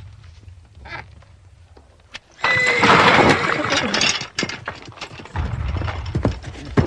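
A harnessed horse whinnying loudly, starting a couple of seconds in and lasting about two seconds. Heavy low thumps follow, then a sharp knock near the end.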